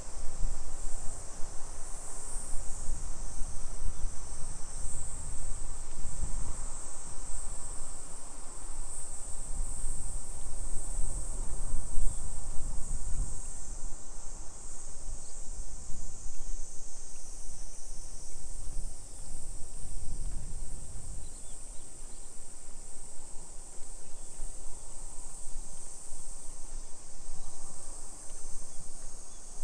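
A steady, high-pitched chorus of insects, over an uneven low rumble that swells and fades.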